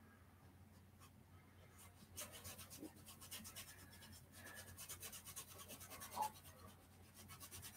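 Faint scratchy rubbing of a fine paintbrush stroking acrylic paint onto a canvas. It comes as a quick run of short strokes starting about two seconds in and fading near the end, over a low steady hum.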